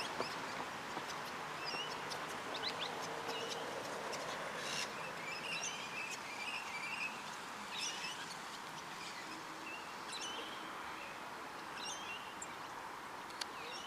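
Several birds chirping and calling in short, scattered phrases and trills over a steady background hiss.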